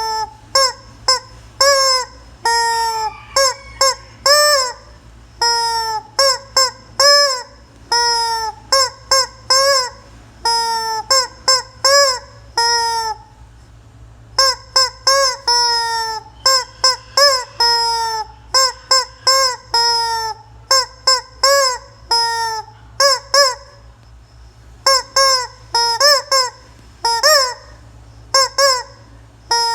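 Rubber chicken squeeze toy squawking over and over as it is squeezed: runs of short, loud honking squawks, each bending in pitch, with brief pauses about 14 and 24 seconds in.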